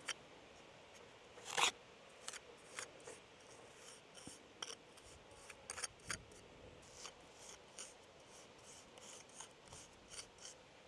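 Irregular scraping and scratching strokes with sharp clicks: hand-tool work at the joints of an old stone wall.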